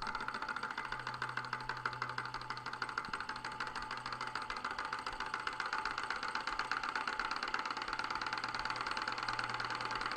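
Small model Stirling engine running steadily with a rapid, even mechanical ticking, starting up the moment its flywheel is flicked by hand.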